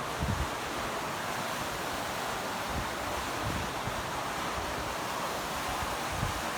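A steady rushing noise, with a few low gusts of wind buffeting the microphone.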